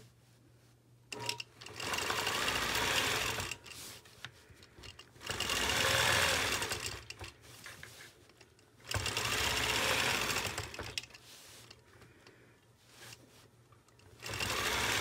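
Longarm quilting machine stitching in four short runs, each a couple of seconds long, stopping in between as the acrylic circle ruler is guided round the arcs. The first run starts about a second in, and the last starts near the end.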